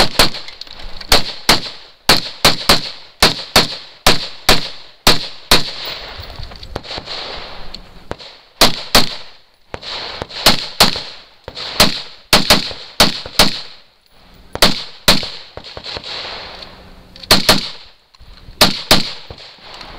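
Gunshots from a long gun fired in quick strings at close range, about two to three shots a second, broken by pauses of a second or two.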